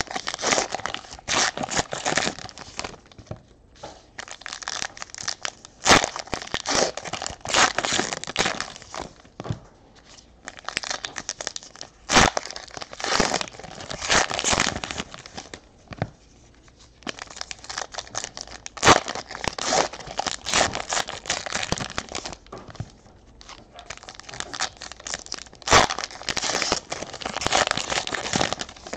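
Trading card pack wrappers being torn open and crinkled by hand, in repeated bursts with short pauses between packs. A sharp tap stands out about every six or seven seconds.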